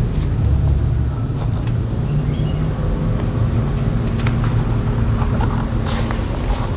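Steady low rumble of wind buffeting the microphone, with a few light knocks and clicks near the end.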